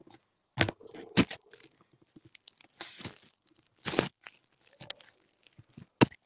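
Handling noise from a phone held close to its microphone: irregular scraping and rustling with four sharp knocks.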